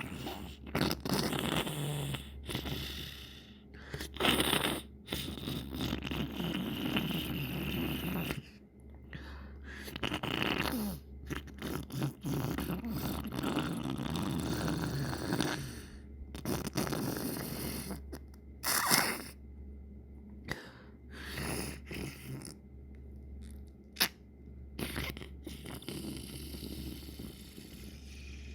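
A congested person sniffling over and over, wet and gurgly through a runny nose, in uneven bursts, with a few louder sniffs among them and one brief click near the end.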